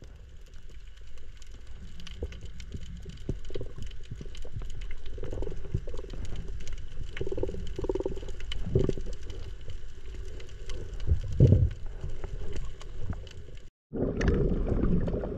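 Underwater sound picked up by a camera in its housing: a low rumble of moving water with a constant crackle of faint clicks, and a few louder gurgling swells. The sound drops out for a moment near the end at a cut, then comes back louder.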